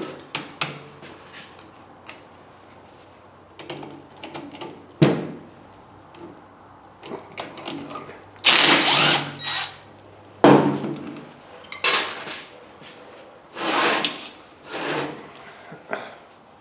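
Tool work on an electric motor's frame bolts: several short bursts of a tool loosening the bolts, about a second each, with a few sharp metallic knocks in between.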